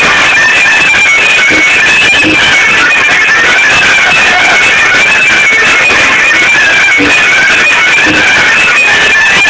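Bucovinian folk dance music, loud and steady, led by a fast, high, quick-stepping melody.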